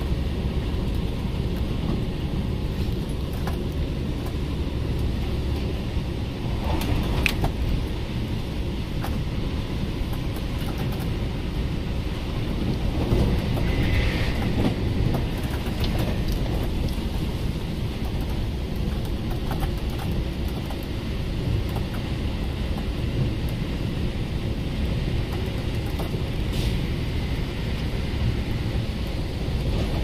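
Electric commuter train running at speed, heard from inside the passenger car: a steady rumble of wheels on rail, with a few brief clicks and a short higher-pitched squeal about halfway through.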